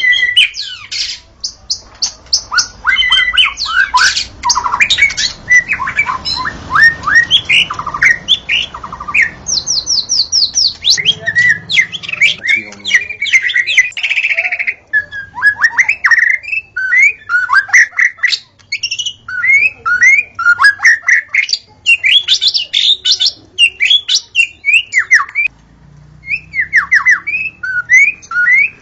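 White-rumped shama (murai batu) singing a loud, varied song: quick runs of whistled notes and rapid trills mixed with harsher, buzzy phrases, with short pauses between bursts.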